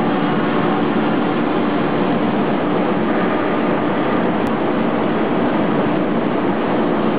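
Broom flagging and trimming machine running: a steady mechanical drone with a constant low hum.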